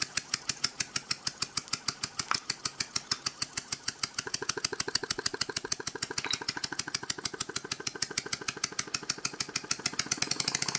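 Copeland Compliant scroll compressor running with its housing opened up and the fixed scroll loosely bolted on, giving a rapid, even clicking once per turn. The clicking quickens about four seconds in and grows louder near the end.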